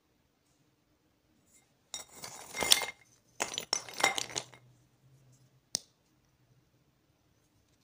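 Dry pieces of baked clay clinking and scraping against each other and a terracotta bowl as a hand rummages through them. The sound comes in two crackly bursts of about a second each, followed by one sharp click near the end.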